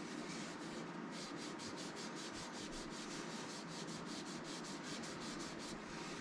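A cloth loaded with Yorkshire Grit abrasive paste rubbing on a small wooden box spinning on a wood lathe, to grind the surface smooth. The steady rubbing sharpens into a rapid, even scratching about a second in, over the lathe's steady running.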